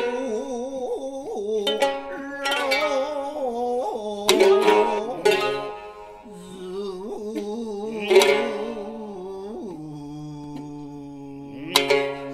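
Bunraku gidayū chanting: the tayū's drawn-out, wavering voice sings and slides through held notes, punctuated by about six sharp plucks of the thick-necked (futozao) shamisen.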